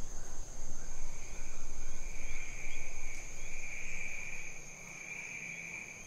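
Rainforest insects calling in two steady, unbroken high-pitched tones, a higher one throughout and a lower one joining about a second in. A low rumbling noise lies under them and fades away about four seconds in.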